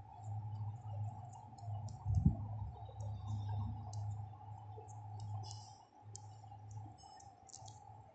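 Faint rapid clicking over a steady low hum, with one louder thump about two seconds in.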